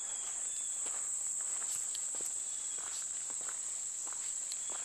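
Steady, high-pitched chorus of insects, with scattered footsteps on a path.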